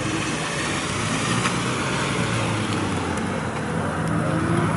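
Toyota Corolla AE86 coupe's engine running as the car rolls slowly past at low revs, rising slightly in pitch near the end.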